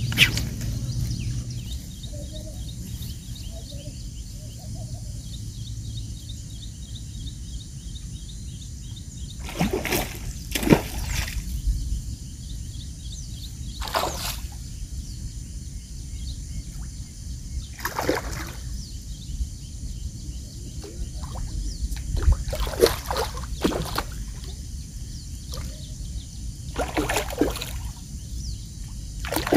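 A hooked mrigal carp thrashing and splashing at the water's surface as it is played in on a fishing line. The splashes come as sharp bursts every few seconds, most of them from about ten seconds in, over a steady low background rumble.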